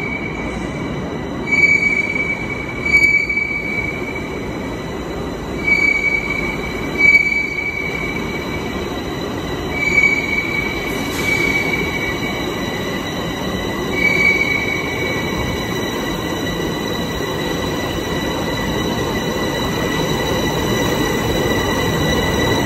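Bombardier metro train arriving at an underground platform. It rumbles as it rolls in and gives short, high squeals over the first fifteen seconds or so while it slows. A steady high whine runs underneath.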